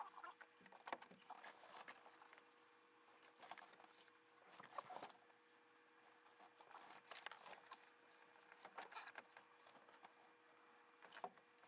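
Faint, scattered clicks and rattles of small dashboard parts being handled during reassembly.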